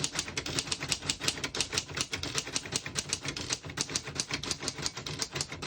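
1931 Smith-Corona portable typewriter being typed on at a steady, brisk pace: a quick run of sharp key and typebar strikes, about six to eight a second. The keys strike evenly, none skipping or sticking.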